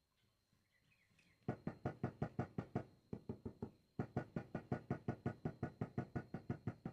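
Rapid, even tapping on a ceramic floor tile, about seven knocks a second, starting about a second and a half in and broken by short pauses near the middle.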